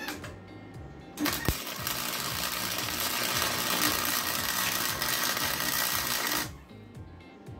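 MIG welding arc crackling and sizzling steadily as a weld is run on steel, striking about a second in and cutting off sharply near the end. Background music plays throughout.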